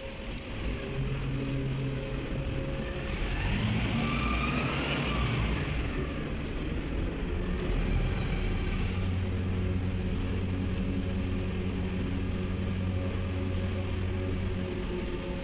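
Engines of cargo-handling machinery running in a ship's cargo hold. The pitch rises and falls about four to six seconds in, and a steady low hum holds from about eight seconds on.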